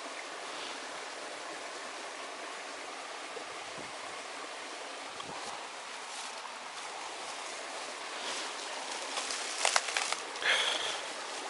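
Steady rushing of flowing stream water. Near the end come a few sharp knocks and a brief high-pitched tone.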